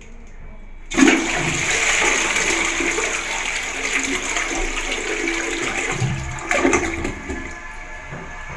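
Cotto C607 open-rim toilet flushing. A sudden rush of water comes about a second in, swirling and draining from the bowl, with a brief louder surge near the end of the flush, then it settles into a quieter steady hiss.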